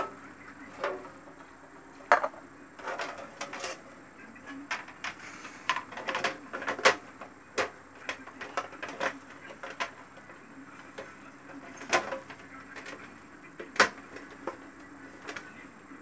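Irregular clicks, taps and knocks as a refrigerator's evaporator plate and its plastic drip tray are handled and fitted together, with a few sharper knocks among lighter rattles.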